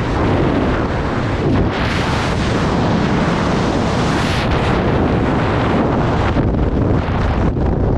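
Loud, steady rush of freefall wind buffeting a skydiver's camera microphone as the pilot chute trails out behind the student and the parachute begins to deploy.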